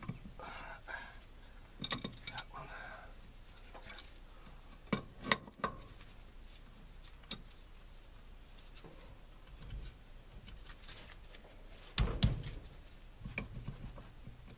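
Hand tools clinking and knocking now and then as wrenches are worked on the brake line fittings of a master cylinder, with the sharpest clanks about five seconds in and twice in quick succession near the end.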